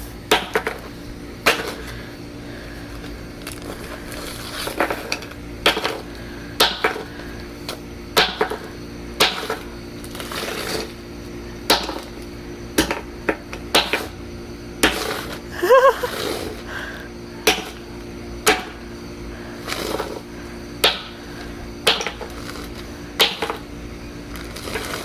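Repeated blows smashing a collectible bird statue inside a plastic bag on concrete, one sharp crack about every second.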